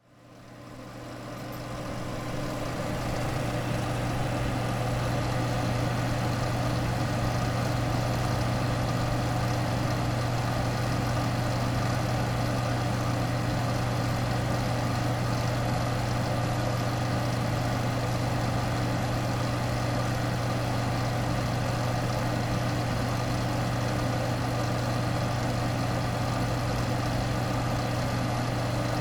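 An old computer fan running steadily: a constant low hum with air noise over it. It rises in level over the first few seconds, then holds steady.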